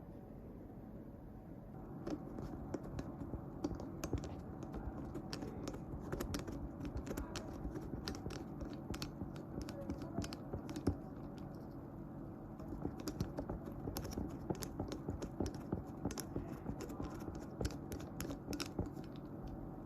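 Light, rapid, irregular clicking and scraping of small hand tools against a smartphone during disassembly, starting about two seconds in and thinning briefly past the middle, over a steady low hum.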